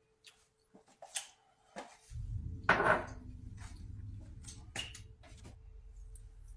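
Kitchen handling noise: a scattering of light knocks and clicks as a drinking glass and a plate are handled on the counter, the loudest knock about three seconds in. A low rumble from the phone being moved starts about two seconds in.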